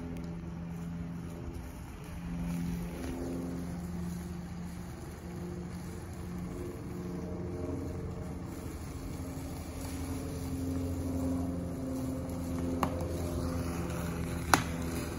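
Jeep Cherokee engine running at low speed as the SUV crawls along a dirt trail, with two sharp cracks near the end.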